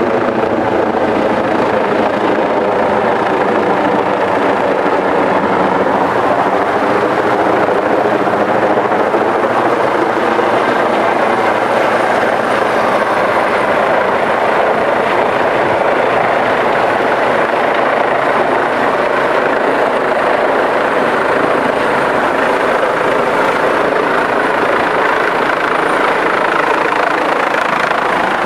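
Eurocopter EC135 trauma helicopter flying low overhead: a loud, steady beat of the main rotor over the turbine engines, with several steady tones and no let-up in level.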